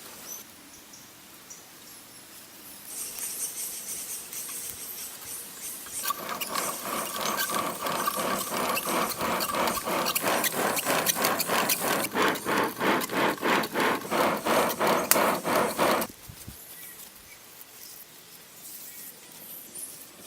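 Hand-worked back-and-forth scraping strokes in a quick, even rhythm, typical of hand tool work on stone. The strokes start about six seconds in, run for about ten seconds and stop abruptly, with fainter rubbing before and after.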